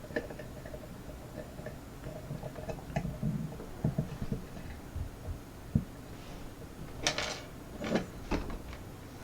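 Handling noises from a kick cylinder lock and picking tools being turned and repositioned: scattered light clicks and taps, with two louder scuffs about seven and eight seconds in.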